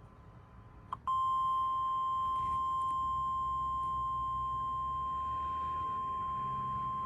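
NOAA Weather Radio 1050 Hz warning alarm tone: one loud, steady, high tone that comes on abruptly about a second in, just after a brief click, sounding as a test of the warning alarm feature.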